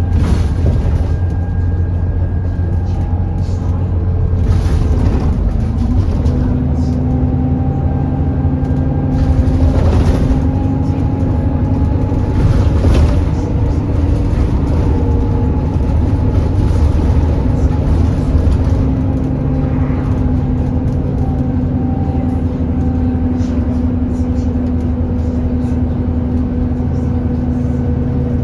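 Alexander Dennis Enviro400 E40D bus running, with a low engine rumble under a loud, steady whine that holds a near-constant pitch: the "hoover" noise, here with the bus overheating.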